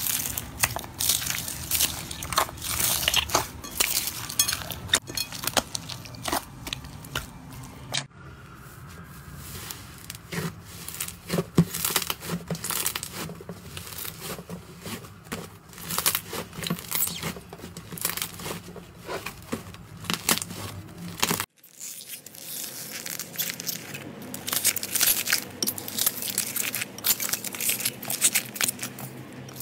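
Slime being kneaded and squeezed by hand, with dense crackling and popping from the foam beads mixed into it. About eight seconds in, this changes to a softer, stickier sound of a thick fluffy slime being pulled apart. Near the end it turns crackly again as slime packed with large foam pieces is pressed.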